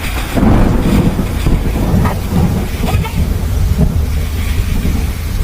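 Storm: a loud, uneven low rumble with rain and wind noise, surging in gusts.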